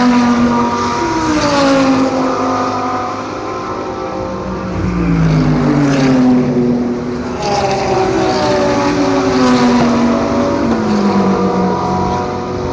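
A string of race cars passing at speed one after another, about five in all, each engine note falling in pitch as it goes by.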